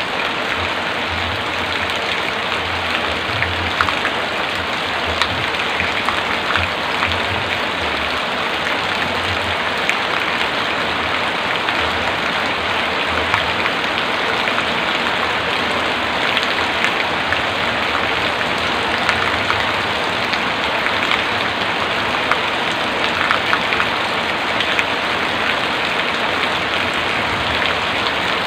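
Heavy rain falling steadily, with occasional sharper drop hits standing out.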